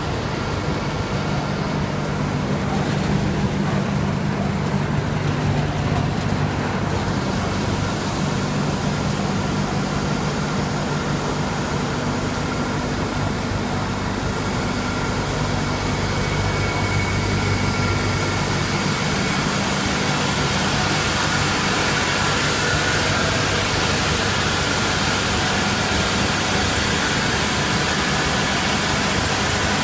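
Cotton waste cleaning machine running: a steady motor hum under a broad rushing noise of air and fibre moving through it, the hiss growing stronger over the first half.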